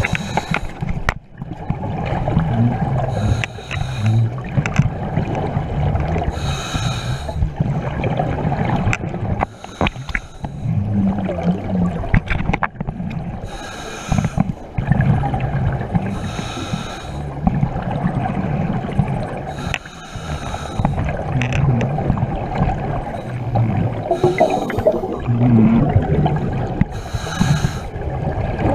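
Scuba regulator breathing underwater: a rush of exhaled bubbles about every three to four seconds, over a steady low rumble of water rushing past in a strong current.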